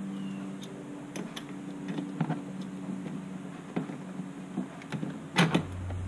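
Scattered metal clicks and light knocks of a 5/16 wrench being worked to loosen the bolt of the rear seat latch's square ring, with a louder knock near the end, over a steady low hum.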